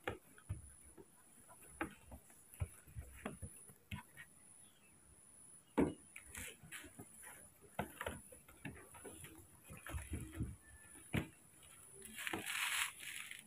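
Irregular soft knocks and thumps of baby monkeys scrambling on a carpeted floor and being patted and handled, with a short rustle near the end.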